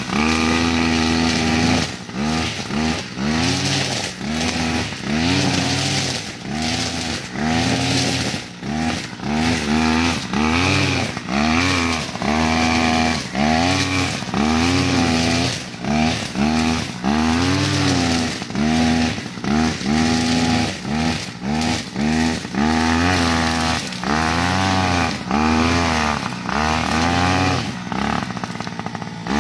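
Reload 553 brush cutter's small engine revving up and falling back again and again, roughly once a second.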